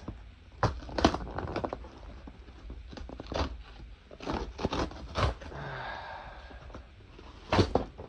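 About nine sharp knocks and cracks as the housing of an Equate warm-mist humidifier is hit and forced open, with a short scraping sound a little past the middle.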